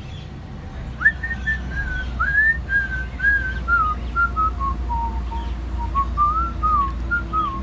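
A person whistling a tune: a single clear melody of short, sliding notes that starts about a second in and works its way down in pitch, over a steady low rumble.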